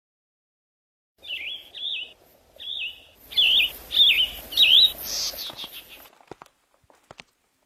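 Recorded birdsong, most likely a nature-sound tone from the Mpow projector alarm clock's speaker: a run of about six quick, high chirps over a faint outdoor hiss, starting about a second in. A few faint clicks follow near the end.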